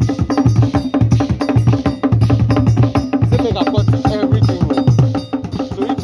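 Traditional Ghanaian drum ensemble played with sticks: a steady, fast rhythm of deep drum strokes mixed with sharp, wooden-sounding stick strikes.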